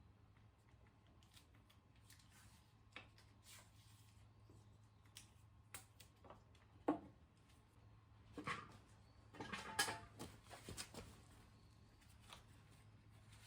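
Scattered light knocks and clicks of small objects being handled, the strongest knock about seven seconds in and a brief cluster a couple of seconds later, over a faint steady hum.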